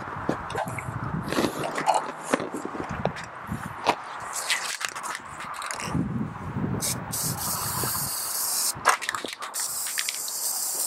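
Hose pliers clicking and scraping on the pressure washer pump as a stuck unloader valve is rocked back and forth to work it free. Two stretches of hissing come in, about seven seconds in and again near the end.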